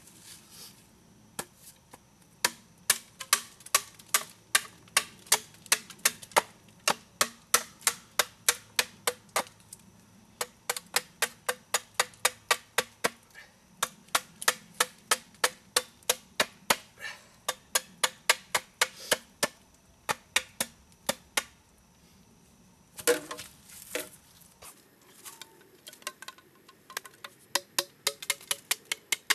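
Tomahawk chopping at a green bamboo pole laid across a log: quick, regular, light hacks, about three a second. A louder, rougher clatter comes near the end, then the chopping resumes.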